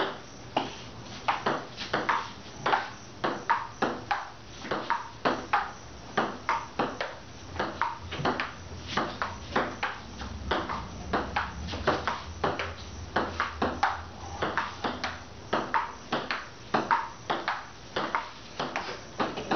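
Table tennis rally: the ball clicking off paddles and the table in a long, unbroken back-and-forth, about two or three hits a second.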